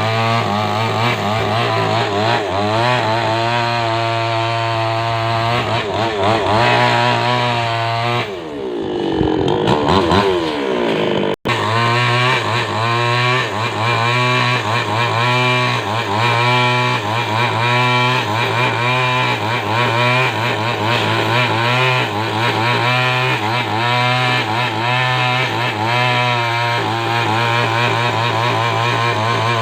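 Chainsaw running at high revs while cutting lengthwise through a coconut palm trunk, its pitch wavering with the load. About a third of the way in the revs sag and climb back, and the sound breaks off for an instant before the cut carries on.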